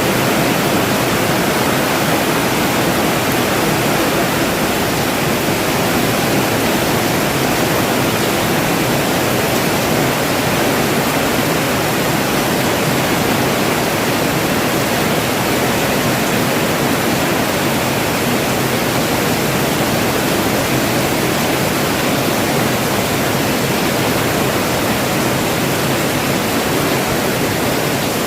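Heavy rain falling steadily, a dense even hiss of drops with no breaks or changes.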